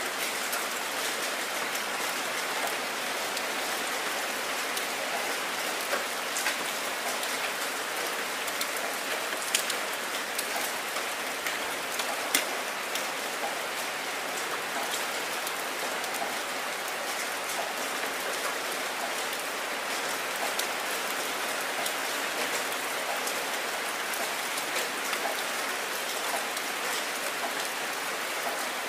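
Heavy rain falling steadily, a constant hiss of drops splashing on a surface, with scattered sharper close drop hits, a couple of them louder near the middle.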